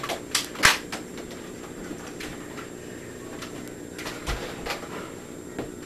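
Sharp clicks and knocks of a Nerf blaster being handled, loaded or fired: two loud ones within the first second, then a few fainter ones spaced out, over a low steady hum.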